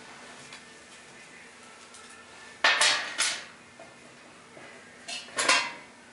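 Small steel hardware clinking: bolts and hand tools handled on a workbench while stainless button-head bolts are fitted to a steel hose reel. Two short bursts of sharp clinks, the first a little under halfway in and the second near the end.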